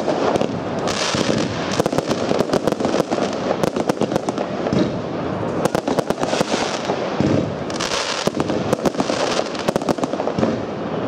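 Sweetlake Intimidator firework cake firing: a rapid, continuous run of shots and bangs from the aerial bursts.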